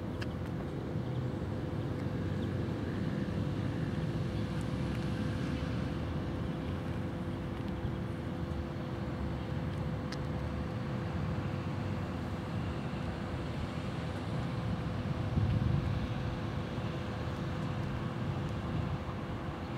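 Steady low outdoor rumble with a constant hum running through it, swelling briefly about fifteen seconds in.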